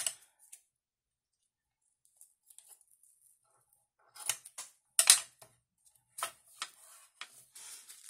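Scissors snipping through a strip of foil washi tape: after a near-silent start, a run of short snips from about four seconds in, the loudest about five seconds in.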